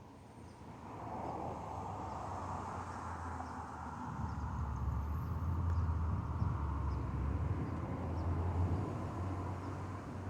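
Rolling thunder: a long, deep rumble that builds over the first few seconds, is loudest in the middle and begins to fade near the end.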